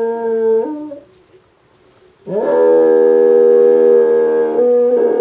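Basset hound howling: a long held howl drops in pitch and breaks off about a second in, then after a short pause a second long howl begins with an upward swoop and is held steady, stepping in pitch near the end.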